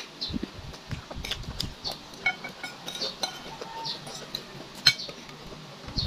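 Metal spoon clinking and scraping against a bowl of rice and dried fish, a few sharp taps scattered through, as someone eats.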